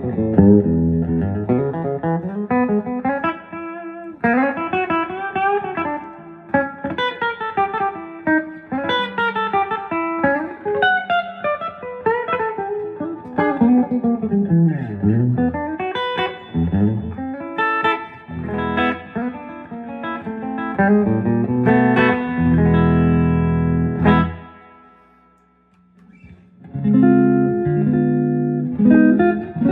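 Telecaster electric guitar played through a 1963 Standel 32J12T amplifier, a hybrid with a germanium-transistor preamp, two 7591 power tubes and a 12-inch Jensen speaker. Picked single-note lines with bends and slides, and ringing chords; about 24 seconds in a chord is left to fade almost to nothing before the playing starts again.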